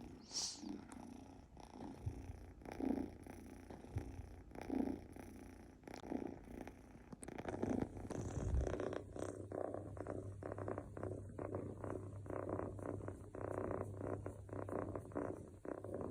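Scottish Fold kitten snoring softly in its sleep, one slow breath about every two seconds, then settling into a steady purr about halfway through. A brief high squeak comes just after the start.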